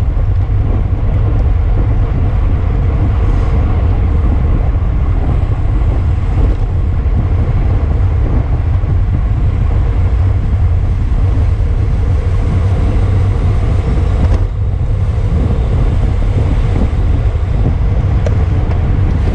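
Steady rumble of wind buffeting a camera microphone carried at racing speed on a bicycle, with road and tyre noise beneath it.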